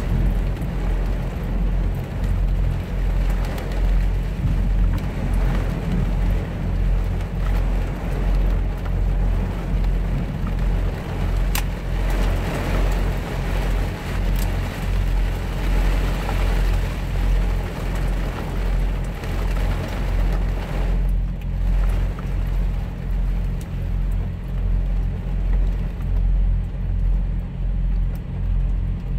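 Rain falling steadily on a truck cab and windshield, over the steady low hum of an idling diesel engine. The rain eases briefly about two-thirds of the way in.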